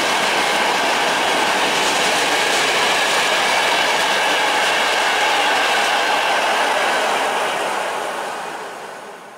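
Freight train of open-top coal wagons rolling past, the wagons' steel wheels running on the rails with a steady rumble and faint high ringing tones. The sound fades away near the end as the last wagon passes.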